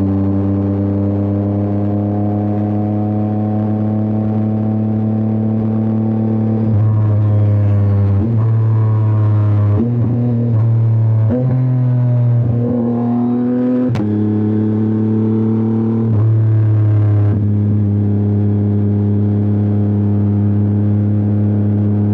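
Yamaha R9's inline three-cylinder engine running under way. Its pitch creeps up steadily for about seven seconds, then steps up and down several times with changes of throttle. A single sharp click comes about fourteen seconds in.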